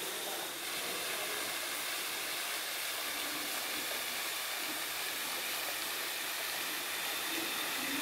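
Steady rushing hiss of a waterfall pouring down a rock face into its pool.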